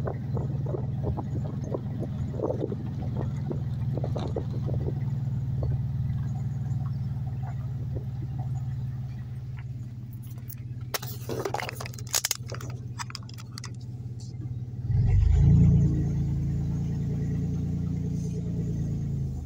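Car engine and road noise heard from inside the cabin while driving slowly, a steady low hum. A few seconds of sharp, light rattling clicks come near the middle, and about fifteen seconds in the engine speeds up and grows louder before settling back.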